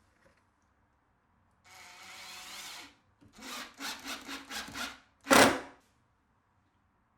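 Wood being worked by hand: one long rasping stroke, then about six quick back-and-forth strokes, ending in one louder stroke.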